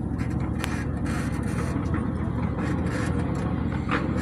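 Steady low rumble of a ride-on miniature railway train running along its track, with a few light clicks.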